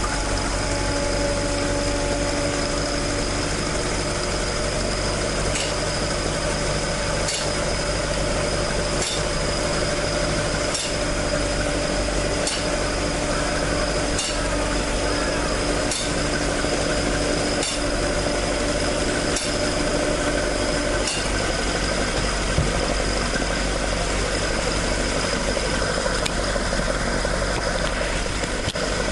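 Toyota AE86's 4A-G twin-cam four-cylinder idling steadily through its stock exhaust, the exhaust leak repaired. A faint tick repeats about every two seconds through the middle of the stretch.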